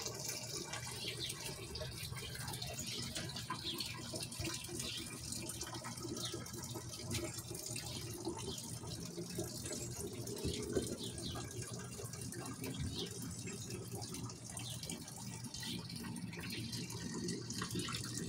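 Steady sound like running water, with many faint, short, high-pitched chirps scattered through it.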